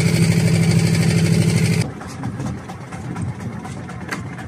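Fishing boat's engine running steadily with a fast, even pulse, giving way abruptly a little under two seconds in to a quieter, rougher background of engine and water.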